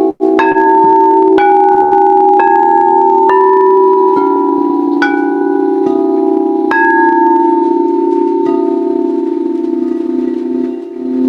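Singing bowls struck one after another, their ringing tones overlapping into a steady drone. New strikes come about once a second in the first few seconds, then more sparsely. The sound cuts out for a moment just after the start.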